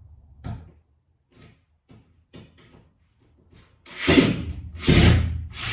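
Power drill running in short bursts, backing a screw out of a board, after a few light knocks. The bursts start about four seconds in and again about a second later.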